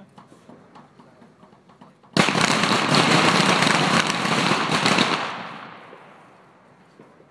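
Pistol fire on a range: a few faint scattered shots, then about two seconds in a sudden loud, dense crackle of many overlapping shots for about three seconds that tails off and fades.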